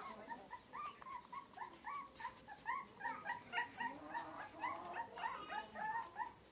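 Newborn puppy whimpering: a rapid string of short, rising squeaks, about three or four a second.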